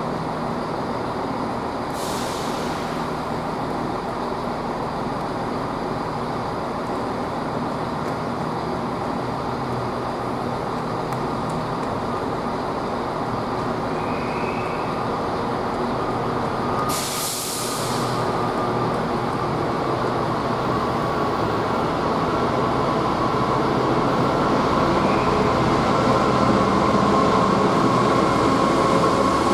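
Class 66 diesel-electric locomotive's two-stroke V12 engine running as it approaches hauling a loaded freight train, growing louder toward the end. Two short hisses come about two seconds in and again about halfway.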